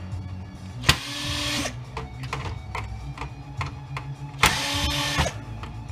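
Cordless drill/driver run in two short bursts about three seconds apart, each starting with a sharp click and a steady whine that winds down as the trigger is released, driving at the screws holding a scanner's stepper motor.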